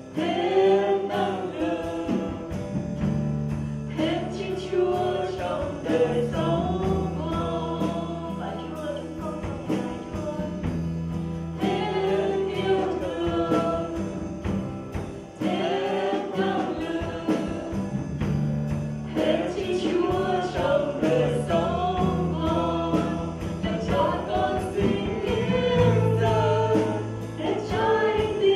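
Live worship band playing a song: a woman singing lead over electric bass, acoustic guitar and drums with a steady beat.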